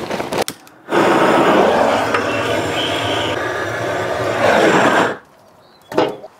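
Charcoal rattling out of a bag into a steel smoker firebox. Then a handheld propane torch fires into the coals with a loud steady rush for about four seconds to light them, and shuts off sharply. A knock near the end as a wood split is set on the firebox.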